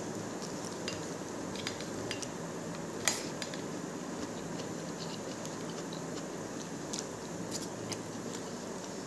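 Fingers mixing rice and curry on a plate: soft, scattered small clicks and squishes, with one sharper click about three seconds in, over a steady background noise.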